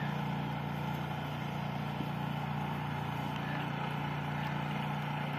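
Steady low drone of a distant engine running at one unchanging pitch, over a light outdoor hiss.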